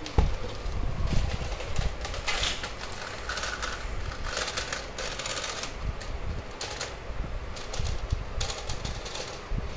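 Plastic LEGO train's wheels clattering and clicking over studded LEGO plates and floorboards as it is pulled along by a thread, in irregular rattling bursts, with a sharp knock just after the start.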